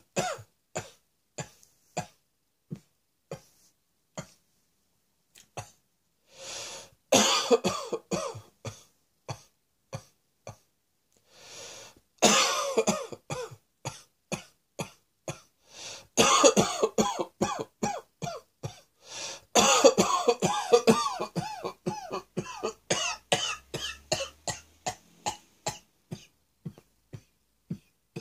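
A person coughing: many single short coughs, with several longer coughing fits in the middle.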